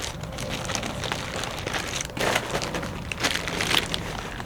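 Crinkling packaging with scattered light clicks and knocks as clutch kit parts are handled and lifted out of their box.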